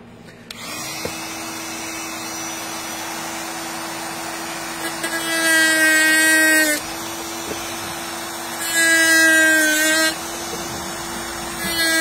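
Dremel rotary tool with a cutoff wheel starting up about half a second in and running steadily, with three louder, harsher spells as the wheel cuts into the neck of an electric toothbrush, its pitch dipping slightly under each cut.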